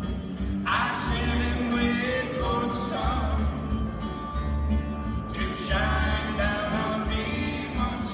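A bluegrass string band playing live: fiddle, acoustic guitar, banjo and upright bass.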